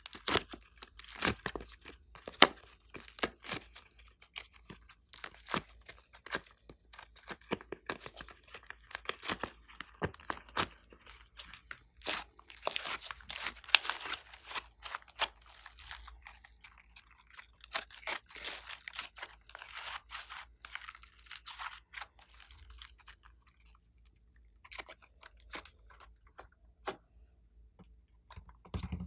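Soft slime being peeled from a silicone mold and squeezed by hand: a run of sticky crackles, pops and small clicks. It is densest about halfway through and thins to scattered clicks near the end.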